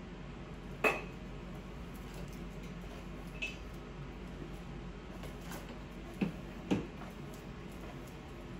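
Four sharp clicks of small hard hairdressing tools being handled: a loud ringing click about a second in, a fainter one a few seconds later, and two close together past the middle, over a faint steady room hum.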